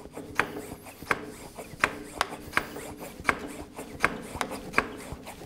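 Hand pump of a cooling-system pressure tester being worked, with sharp clicks at about three a second as it builds pressure in the car's cooling system for a leak test.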